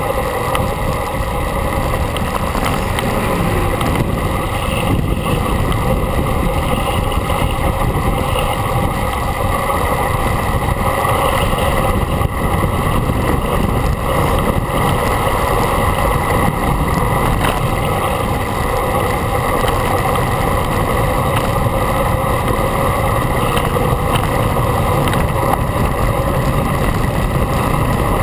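Steady, loud rush of moving-vehicle noise, wind and road rumble with no break or change.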